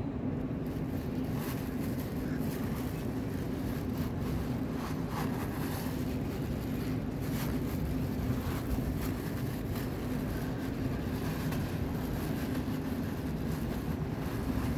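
Steady low hum and rumble of outdoor background noise, with faint short clicks here and there.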